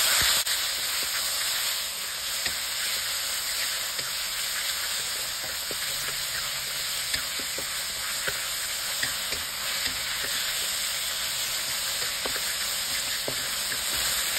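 Chicken thigh pieces sizzling in hot oil in a wok as they are stir-fried, with a steady sizzle and the scattered light knocks and scrapes of a wooden spatula against the pan.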